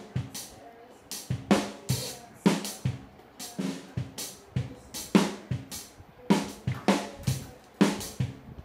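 Thin metal TV antenna rod being batted by a kitten, springing and clattering against a wire crate in irregular sharp hits, each ringing briefly.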